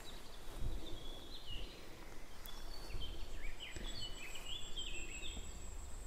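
Songbirds singing in woodland: a string of short chirping notes and quick pitch glides, with a thin, steady high tone joining in the second half, over a low background rumble.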